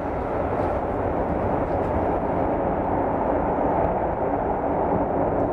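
Airbus A380's four Rolls-Royce Trent 900 turbofans during the landing rollout, a steady, loud rumbling rush of engine noise.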